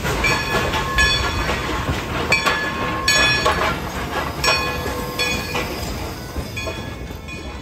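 Klondike Katie No. 192, a narrow-gauge 2-8-2 Mikado steam locomotive, and its tender rolling slowly past on 36-inch gauge track. Its steel wheels squeal in short, high-pitched bursts roughly once a second over a low rumble.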